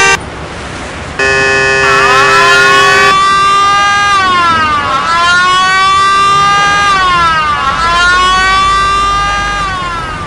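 A car horn honks briefly, then sounds one long blast, while an emergency-vehicle siren starts up beneath it. The siren then wails, rising and falling in slow sweeps about every three seconds, fading near the end.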